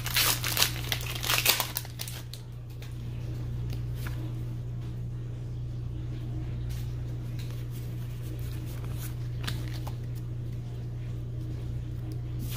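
Foil Pokémon booster-pack wrapper crinkling, dense and sharp for about the first two seconds, then a quieter stretch of a steady low hum with a few faint clicks and rustles.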